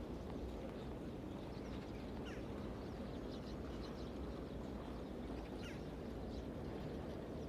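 Outdoor winter ambience: a steady low rumble with a few short bird calls, falling chirps about two seconds in and again near six seconds.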